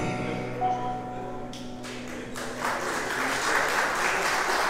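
The last chord of an electric keyboard and acoustic guitar dying away, then audience applause starting about halfway through and carrying on.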